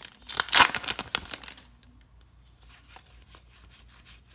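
A foil trading-card pack wrapper crinkling and tearing open, loud for about the first second and a half, then only faint rustles and ticks as the cards are handled.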